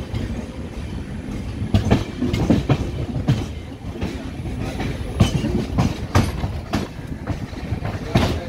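Indian Railways passenger train running, heard from on board: a steady low rumble with irregular clacks and knocks as the wheels pass over rail joints.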